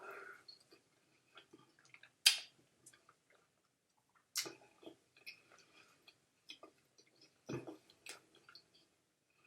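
Close-miked eating sounds: soft wet chewing and mouth clicks, with a few sharper clicks, the loudest about two seconds in.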